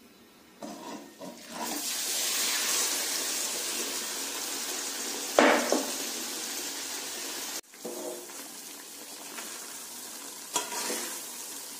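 Boiled chana dal paste sizzling as it fries in hot ghee in a metal kadhai, stirred with a spatula that scrapes the pan. The sizzle starts a couple of seconds in, drops suddenly about two-thirds of the way through, then carries on quieter.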